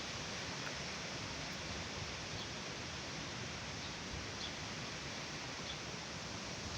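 Rain falling steadily, an even hiss with a few faint ticks.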